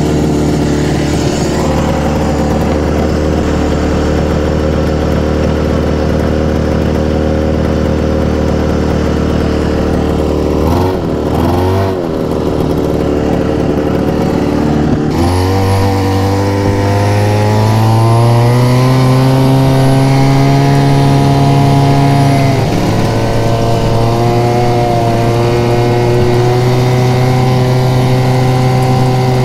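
Vintage Arctic Cat snowmobile's two-stroke engine running under way at a steady speed, its pitch wavering for a moment about eleven seconds in. After a cut it revs up over a few seconds and holds a higher steady speed, dipping once briefly about two-thirds of the way through.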